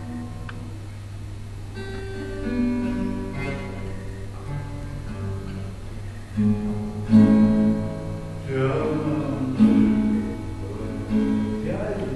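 Acoustic guitar played live, with plucked notes and strummed chords ringing out. The playing grows louder and fuller from about six seconds in.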